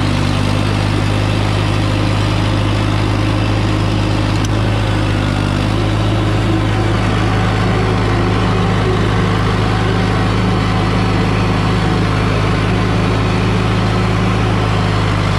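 John Deere 450C crawler dozer's diesel engine idling steadily, with a slight change in its note about six seconds in.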